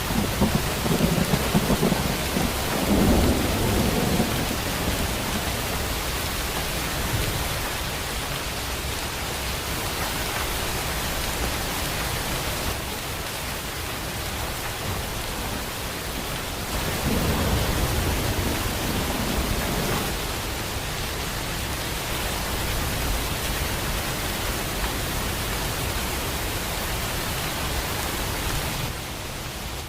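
Steady heavy rain hissing, with deep thunder rumbling during the first few seconds and again a little past halfway.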